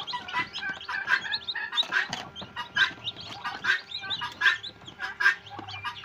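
A tray of newly hatched chicks, many of them Kadaknath, peeping: quick high chirps, several a second and overlapping.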